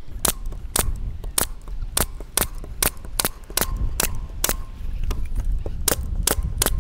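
Pneumatic nail gun firing in quick succession, about twenty sharp shots a few tenths of a second apart, driving one nail into each end of the wooden bottom bars of beehive frames.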